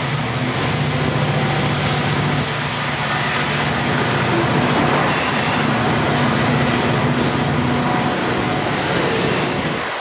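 Freight cars of a long train rolling past, a steady rumble and rattle of wheels on rail with a low hum underneath. Brief high-pitched squeals come about five and eight seconds in.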